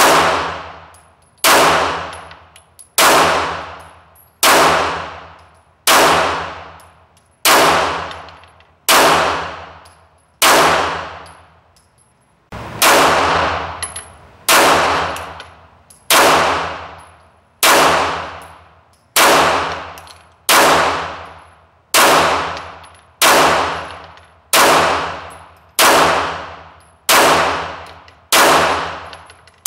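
Glock 34 Gen 4 9mm pistol firing single shots at a slow, steady pace, about one every one and a half seconds, with a slightly longer pause just before the middle. Each shot rings out in the long echo of an indoor range.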